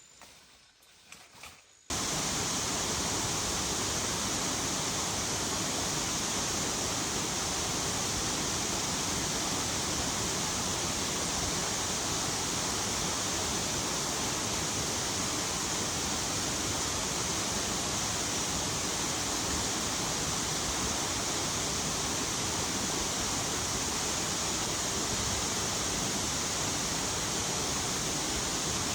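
Heavy rain falling, a dense, steady hiss that cuts in abruptly about two seconds in and holds unchanged. It is preceded by near-quiet with a faint high tone and a few light clicks.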